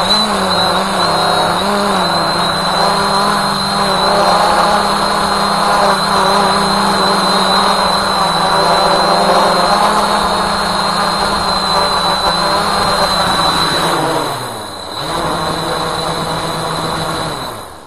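Walkera Voyager 3 quadcopter's electric motors and propellers humming steadily with a thin high whine on top, heard from the drone's onboard camera. About three seconds before the end the pitch dips briefly as the drone sets down in the grass, and then the motors stop.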